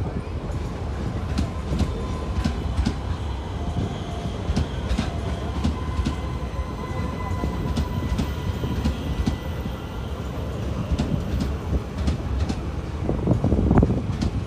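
Passenger coaches of an Indian Railways express train rolling steadily past, a low rumble with the clickety-clack of wheels over rail joints. The rumble swells briefly near the end.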